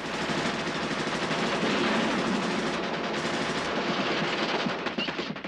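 Sustained rapid machine-gun fire from a war-film battle soundtrack, a dense rattle of shots that thins out near the end.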